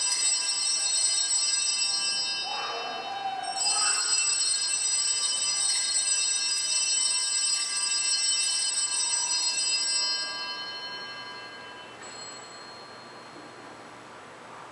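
Altar bells, a cluster of small bells shaken by an altar server, ringing continuously to mark the priest's blessing with the monstrance at Benediction. The ringing breaks off briefly near three seconds in, resumes, and stops about ten seconds in, dying away over the next two seconds.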